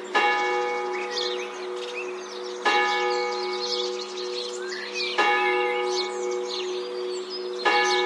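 A single church bell tolling, struck four times at about two and a half seconds apart on the same note, each stroke ringing on into the next. Small birds chirp and twitter throughout.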